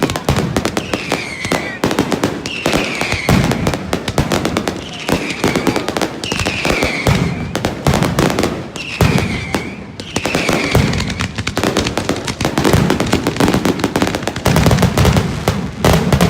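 Fireworks display going off in a rapid, dense barrage of crackles and bangs. Through the first ten seconds a short falling whistle repeats about every one and a half seconds, and the bangs grow thicker and heavier near the end.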